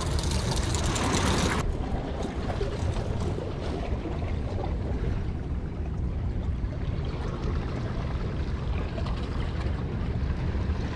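Wind rushing over an outdoor microphone beside the sea, with water washing against jetty rocks: a loud hissing rush for about the first second and a half, then a steady low rumble.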